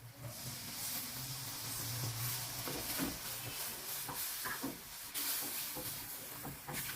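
Food sizzling in a pan, a steady hiss that starts just after the beginning, with scattered clicks from stirring.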